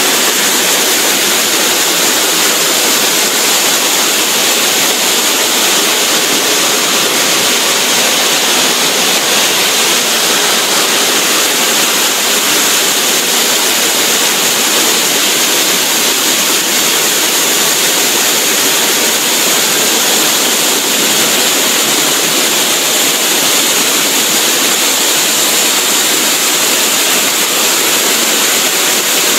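QSQ-2200 multi-blade circular stone saw cutting a stone block with cooling water pouring over the blades: a loud, steady, high-pitched rushing grind that does not let up.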